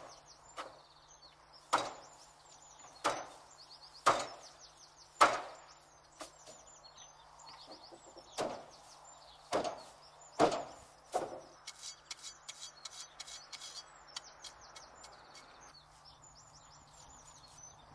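Sharp wooden knocks about once a second from a thatcher working bundles of thatching reed, turning to lighter, quicker taps after about eleven seconds. Small birds chirp throughout.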